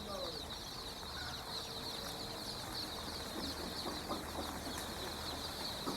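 A flock of chickens calling, with a dense, continuous chatter of many short, high chirps and occasional low clucks.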